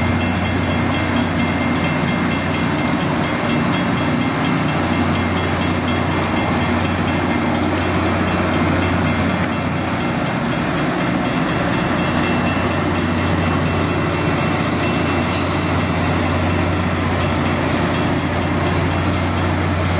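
Loram rail grinder train passing close by: a loud, steady rumble of its diesel engines and rolling cars on the rails.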